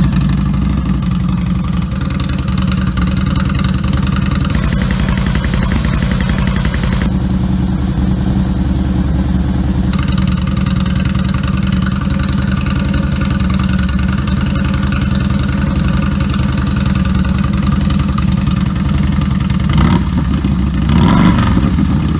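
Harley-Davidson V-twin idling steadily through a newly installed Freedom aftermarket exhaust with its baffles in, just after starting. It is blipped once near the end.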